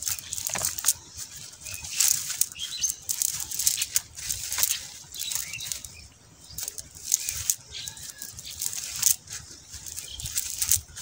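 Wet nylon cast net being pulled open by hand on grass: irregular rustling and crackling of the mesh, with small catfish flapping in it.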